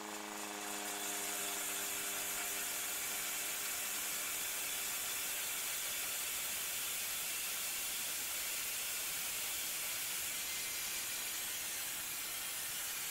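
Steady, even hiss of a large Guillet log bandsaw running idle, its big wheels and blade turning without cutting.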